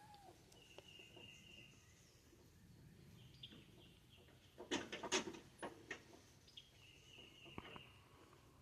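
Faint bird calls: two held high whistles of about a second each, one near the start and one about seven seconds in, with a short burst of clicks and rustles around the middle.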